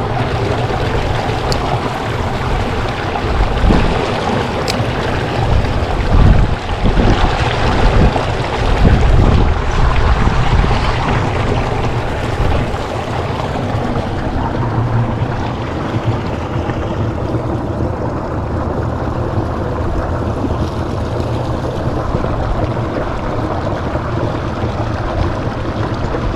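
Strong wind buffeting the microphone in gusts, with a deep rumble that is heaviest in the first ten seconds or so and then eases to a steadier rush.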